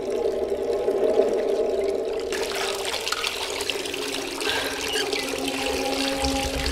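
Water running from a tap and splashing, the flow growing fuller and hissier about two seconds in.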